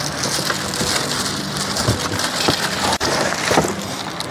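Cardboard carton and plastic wrapping rustling and scraping as a flat desk panel is pulled out of its box, with scattered clicks and one louder knock late on.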